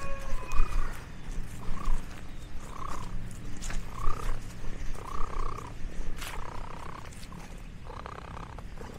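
A short animal call repeating about once a second, over a steady low rumble and scattered clicks.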